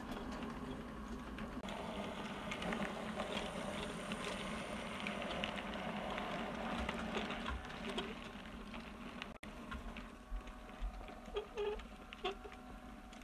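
OO gauge model railway wagons rolling along the track, wheels clicking over rail joints, over a steady low hum. About nine seconds in the sound cuts and comes back quieter, with scattered clicks.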